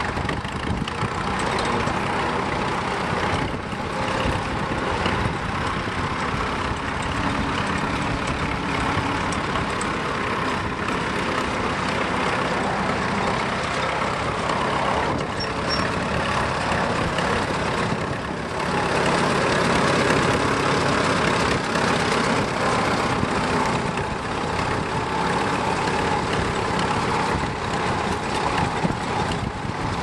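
Vintage tractor engine running steadily while pulling a plough through stubble, getting a little louder about two-thirds of the way through.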